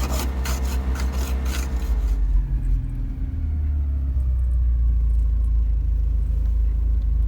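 Porsche 924S's 2.5-litre four-cylinder engine running, heard as a low rumble inside the cabin. For the first two seconds a rapid rhythmic ticking, about five a second, rides over it, a funny sound put down to ice. After that only the steady low rumble remains.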